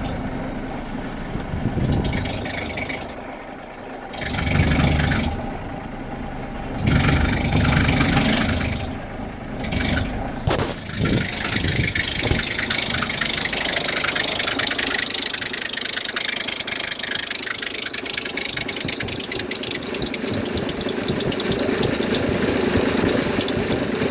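Mercedes-Benz Sprinter 313 CDI 2.1-litre diesel engine running, with a squeaky noise from the engine bay that comes in swells during the first ten seconds as the steering wheel is turned left and right. After that a steady hiss-like noise takes over. The owner traces the squeak to a failing alternator worn out by coolant dripping onto it.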